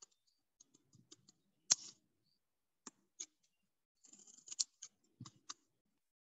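Scissors cutting a small piece of paper in short, separate snips, the loudest about two seconds in and a quick run of snips around four to five seconds in.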